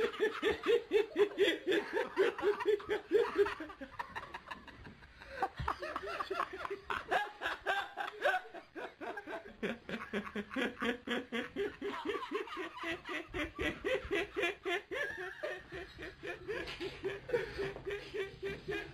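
Human laughter: rapid, rhythmic bursts of ha-ha laughing, with a brief lull about four seconds in before it picks up again.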